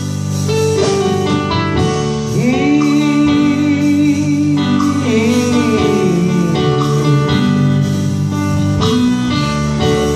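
Live gospel worship music: a wavering, held sung line over sustained chords and guitar.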